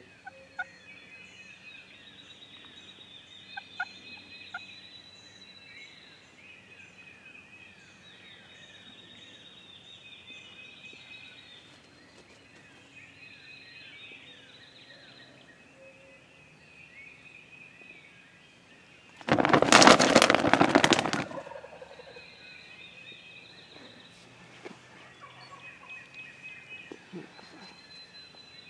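A wild turkey gobbler, roosted nearby, gobbles once about two-thirds of the way through: one loud, rapid rattling gobble lasting about two seconds. Songbirds chirp faintly and steadily behind it.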